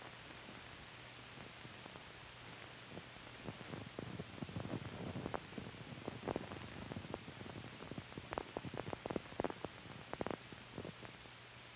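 Faint hiss and a steady low hum from an old film soundtrack, with scattered soft clicks and pops from about three seconds in until near the end.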